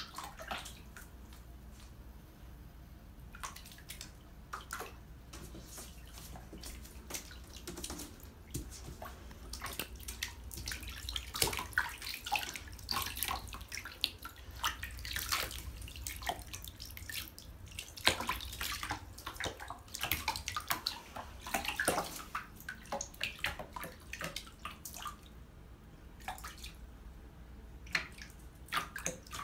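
Shallow bathwater in a bathtub splashing and dripping as ferrets move through it: irregular small splashes, busiest through the middle stretch.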